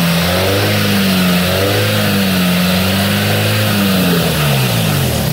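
Toyota MR2 (AW11) four-cylinder engine being revved, its pitch rising and falling several times before dropping back toward idle near the end. It is running on the stand to bring a cold engine up to temperature while air is bled from the cooling system.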